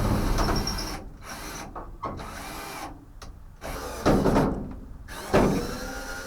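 Power drill running into sheet metal, stopping about a second in, followed by quieter handling noise and two short, louder bursts about four and five and a half seconds in.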